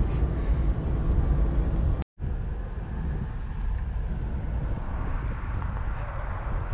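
Steady wind noise rumbling over the microphone, mixed with road noise, from a Ford Mustang convertible driving with its top down. The sound drops out to silence for an instant about two seconds in.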